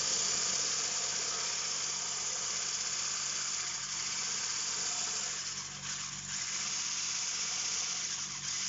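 Electric mixer running steadily, beating eggs, oil and water into a froth in a stainless-steel bowl: a constant high hiss over a low motor hum.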